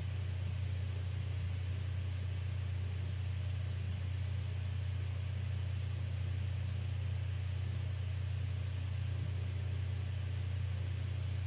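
A steady, unchanging low hum with no other distinct sounds.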